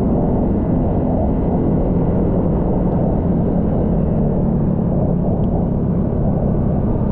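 Honda Vario 160 scooter riding at a steady speed: its single-cylinder engine runs evenly under a heavy, muffled wind rumble.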